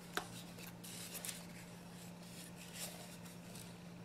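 Faint rustling and crinkling of creased origami paper being handled and folded, in scattered short crackles over a low steady hum.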